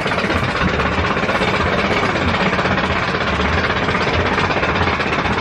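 Steady, loud engine-like machinery rumble with a pulsing low hum underneath.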